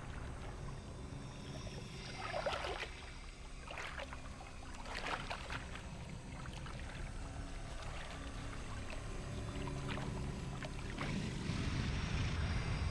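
Crocodilians splashing into a river: several sharp splashes about two and a half, four and five seconds in, and a swell of water noise near the end, over a low steady rumble.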